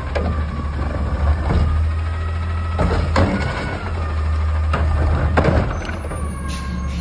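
Front-loader garbage truck's Curotto-Can arm gripping a trash cart and lifting it to dump: a steady hydraulic whine and the low drone of the idling engine, broken by several clunks of the arm and the cart.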